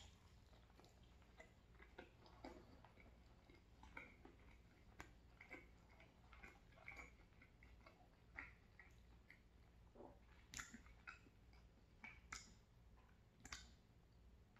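Faint chewing of a mouthful of pesto chicken pizza: soft, irregular wet mouth clicks over a low room hum, with a few louder clicks in the last few seconds.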